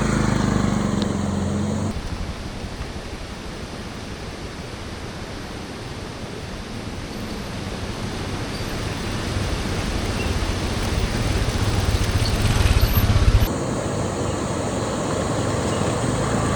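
Motorbike riding: the engine hums for about the first two seconds, then cuts to a steady rushing noise of wind and road on the microphone that grows louder before the engine hum returns near the end.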